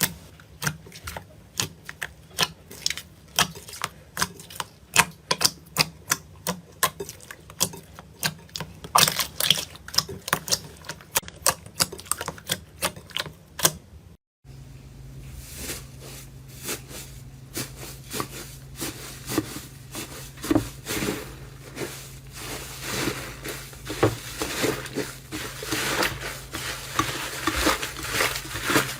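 Slime being pressed and worked by hand, giving sharp popping clicks a few times a second. About halfway through it cuts to another slime that makes softer, denser clicking.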